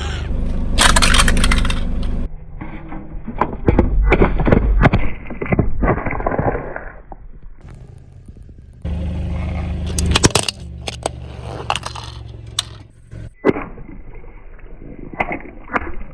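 A car tyre rolling over and crushing brittle objects: a run of sharp cracks and crunches. A steady low engine hum runs under it at the start and again about halfway through.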